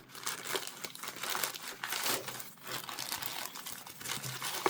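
Paper packaging crinkling and rustling continuously as a parcel is unwrapped by hand.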